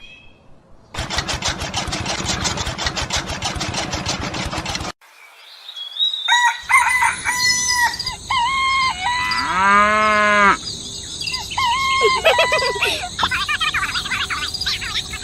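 A rapid rattling buzz for about four seconds, then after a short pause chickens clucking and a rooster crowing once.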